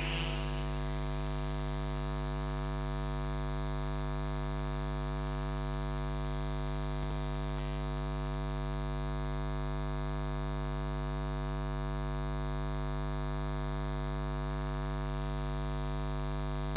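Steady electrical mains hum, a low buzz with many even overtones that holds unchanged, from the hi-fi amplifier and loudspeaker system with no music playing; the last of the previous music dies away just at the start.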